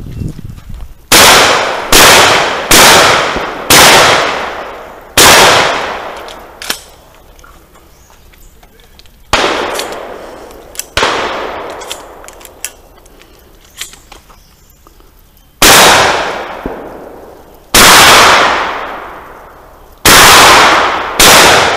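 A shotgun firing about ten loud shots in quick groups separated by pauses, each shot trailing off in a long echo, with a few small sharp clicks between the shots.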